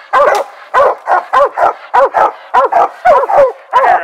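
Mountain curs barking treed at the base of a tree, a fast, loud string of barks, about three or four a second. They have put game up the tree, which the hunter names as a raccoon.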